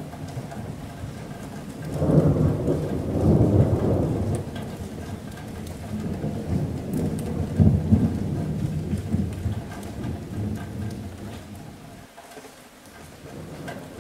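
Thunder rumbling over steady rain on a metal roof. A deep rumble breaks about two seconds in, rolls on in several surges, and dies away near the end.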